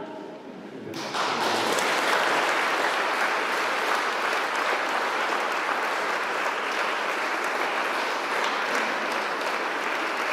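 Church congregation applauding. The clapping starts about a second in and runs on as steady, dense applause.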